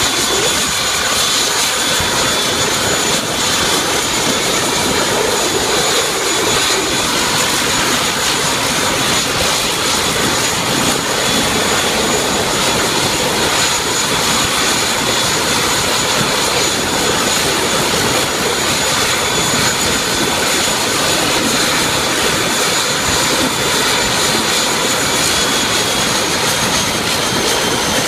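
The twin turboprop engines of an ATR 72 running on the ground: a steady, loud rushing noise with a high, even whine that drops slightly in pitch near the end.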